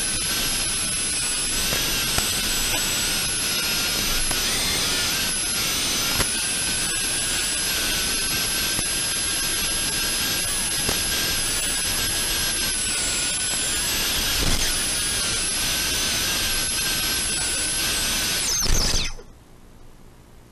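FPV quadcopter's electric motors and propellers whining at flying throttle over a steady hiss, the pitch wavering slightly as the throttle changes. About 19 seconds in there is a short thump and the motors spin down to a stop after it lands, leaving only a faint low hum.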